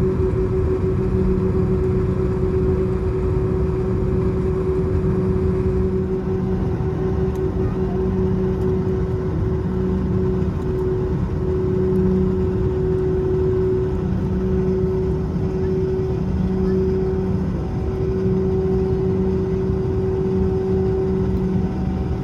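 Airbus A321-231's IAE V2500 turbofan engines droning inside the passenger cabin: a loud, steady rumble with two low hums that swell and fade in a slow beat.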